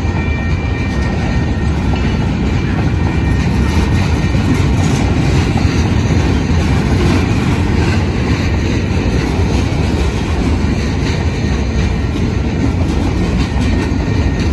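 Arizona Eastern Railway freight train's boxcars rolling past at a grade crossing, a steady loud rumble of wheels on rail.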